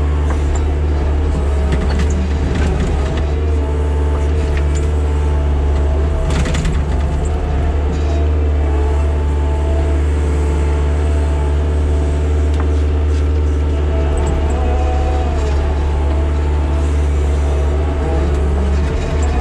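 Engine of a tracked earth-moving machine running steadily under work, its pitch shifting slightly as it moves, with a brief rattle about six and a half seconds in.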